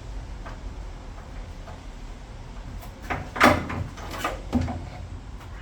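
Hand tools and car parts being handled during an engine-bay strip-down: a few faint clicks, then a loud clattering knock about three and a half seconds in and two lighter knocks about a second later.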